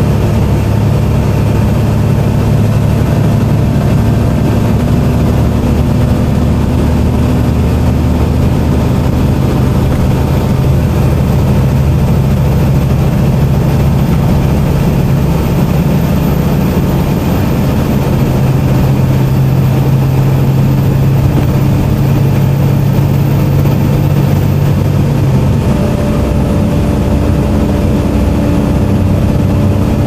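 Volvo B7TL bus's Volvo D7C six-cylinder diesel engine running under way, heard inside the passenger saloon over road noise. It is loud and steady, and the engine note changes pitch a couple of times.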